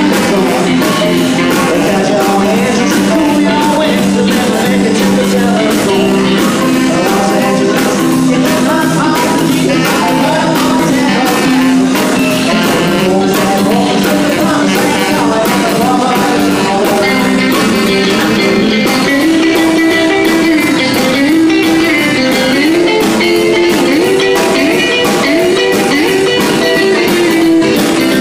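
A live rock and roll band playing loudly: a man singing over electric guitar, upright double bass, drum kit and saxophone.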